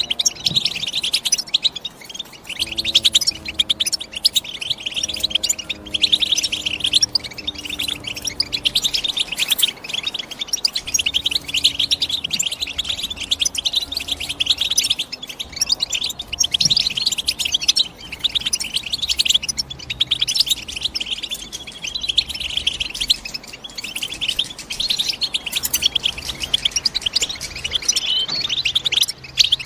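European goldfinch singing: a continuous, rapid twittering of bright chirps and trills with no real pauses.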